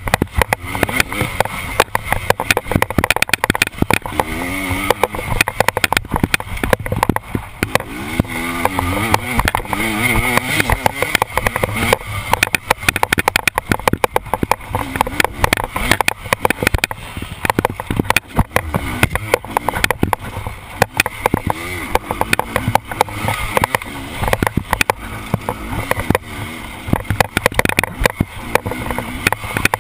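KTM enduro dirt bike engine revving up and down hard under way, with many sharp knocks and clatters as the bike rides over bumps.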